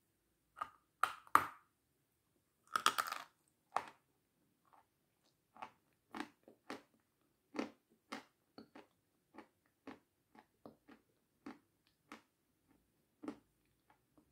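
Crunching as a large crisp meringue is bitten into and chewed close to the mouth: two loud crackling bites in the first few seconds, then a run of smaller crunches, about one or two a second.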